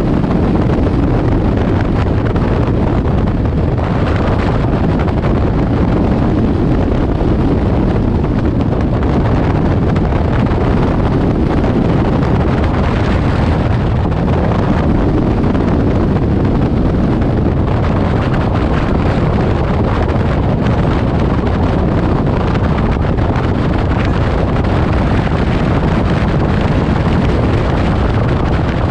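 Light aircraft engine and propeller running, mixed with heavy wind noise from the airflow buffeting the microphone. It holds steady and loud, with no clear changes.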